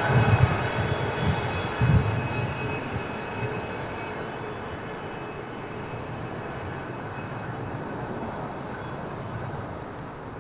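Intermodal freight train's loaded container wagons rolling away on the rails, with two heavy low thumps from the wheels in the first two seconds. A high ringing over it dies away within a few seconds, and the steady rumble fades as the train recedes.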